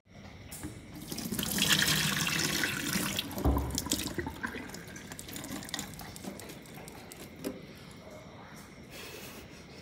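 Water pouring and splashing into a stainless steel sink as cooked instant noodles drain through a mesh strainer. It is loudest in the first few seconds, then dies down to a lighter trickle with a few small clicks.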